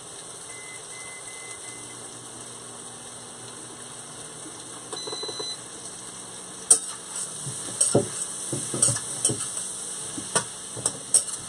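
Onions and peppers sizzling in a skillet on an induction cooktop. Early on there are a few short electronic beeps as the microwave is set. From about the middle on, a utensil scrapes and clinks in the pan as the vegetables are stirred.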